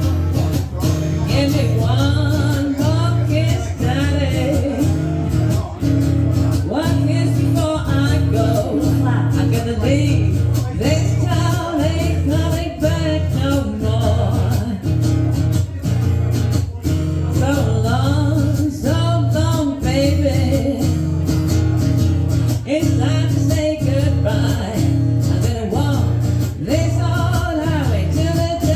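Live band playing a song: singing over guitar, with a steady beat and sustained bass notes.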